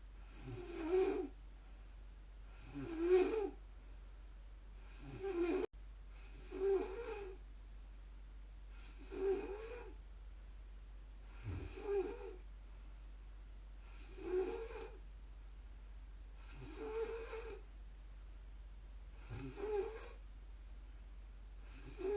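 A woman snoring in a steady rhythm, about one snore every two and a half seconds, each snore lasting about a second.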